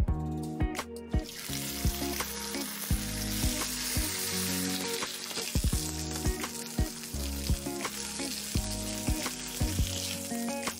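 Secreto ibérico pork searing in olive oil in a frying pan: a dense sizzle starts about a second in and fades near the end. Background music with a steady beat plays underneath.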